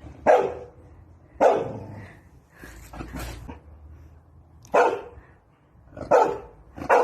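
Chow Chow barking: about five short, sharp barks at irregular intervals, with a longer pause in the middle.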